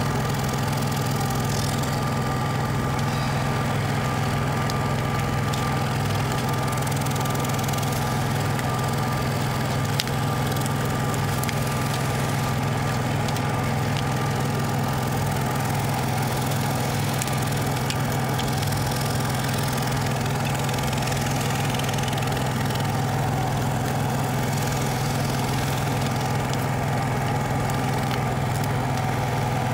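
Semi truck's diesel engine idling steadily, left running to heat the exhaust pipe.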